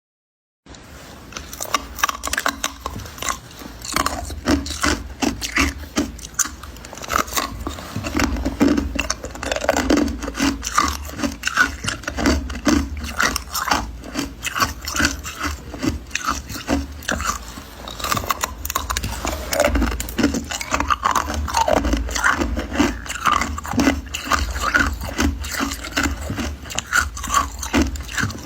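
Crunchy ice being bitten and chewed in the mouth: a dense, unbroken run of crackling crunches.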